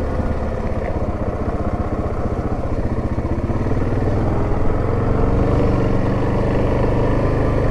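Yamaha Grizzly 700 ATV's single-cylinder engine running steadily as the quad rides along.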